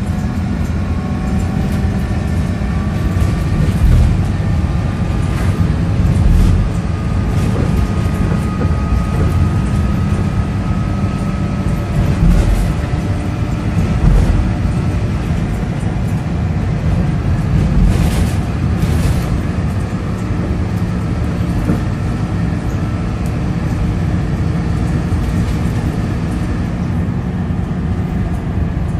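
Scania K230UB bus's five-cylinder diesel and ZF automatic gearbox heard from inside the saloon while on the move: a steady low rumble, with a whine that rises slowly in pitch over the first dozen seconds. Occasional knocks and rattles come from the body.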